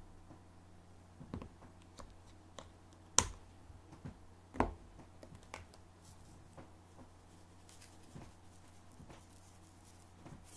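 Scattered light clicks and knocks of hands handling things while preparing food, with two sharper knocks about three and four and a half seconds in, over a low steady hum.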